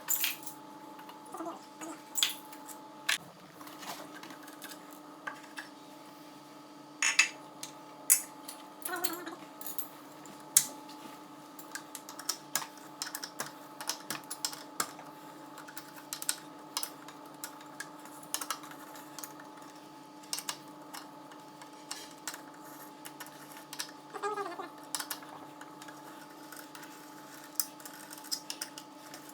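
Irregular light clicks and metallic clinks of hand tools and small metal parts being handled during motorcycle engine repair work, over a faint steady hum.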